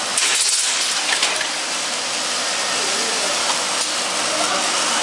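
Pneumatic steel-tube cutting machine running with a steady hissing noise, and a louder burst of hiss about a quarter of a second in.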